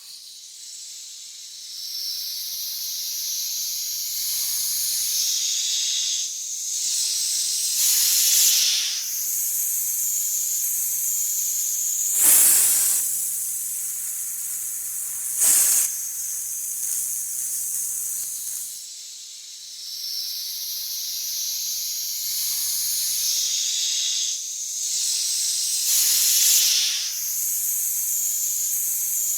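Snake hissing: long, airy hisses that swell and fade, broken every few seconds by a short, louder, sharper hiss.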